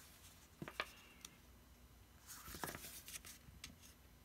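Quiet handling of a cardstock card panel on a desk: a few soft taps in the first second, then a brief rustle of paper sliding under the hands.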